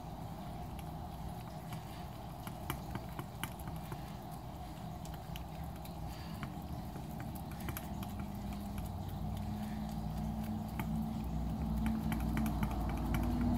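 Fork stirring thick pancake batter in a glass measuring cup, with irregular light clicks of the fork against the glass over a steady low hum.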